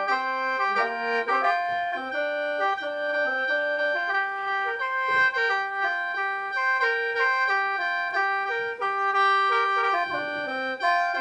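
Khaen, the Lao bamboo free-reed mouth organ, played solo in lai sao: several reeds sounding together in chords, a melody of short stepping notes moving under a steady high drone note.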